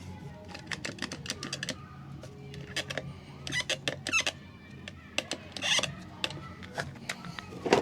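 Handling noise: scattered clicks, taps and short squeaks as the cordless reciprocating saw and its blade are handled, with the motor not running. A louder clatter comes near the end.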